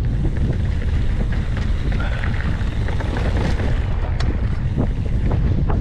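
Wind buffeting the microphone of a mountain bike camera, a steady low rumble, with a few sharp knocks and rattles as the bike rolls over rocks.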